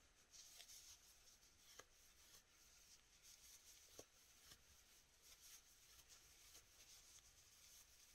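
Very faint rustle of yarn being worked with a crochet hook, with a few soft clicks, close to silence.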